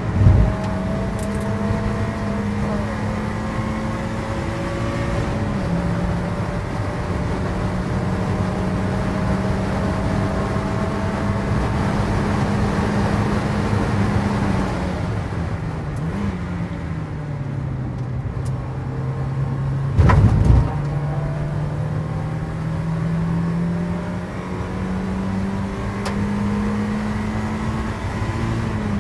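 In-cabin sound of a Mk1 Mazda MX-5 race car's four-cylinder engine running hard under racing load. The note holds high with a short dip for a gear change about five seconds in. Around the middle it falls as the car slows, then rises again as it accelerates. Two loud thumps come through the car, one at the very start and one about two-thirds of the way through.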